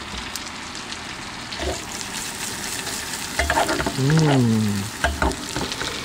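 Salami, garlic and sage frying in butter in a pan on a camper van's gas hob, a steady sizzle. A person's voice is heard briefly in the middle.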